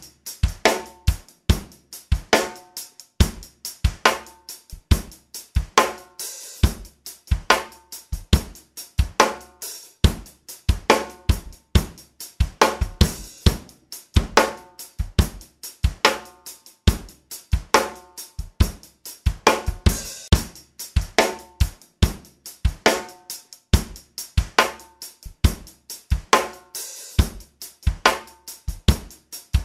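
Background music built on a steady drum-kit beat of kick drum, snare and hi-hat, with a repeating low bass note.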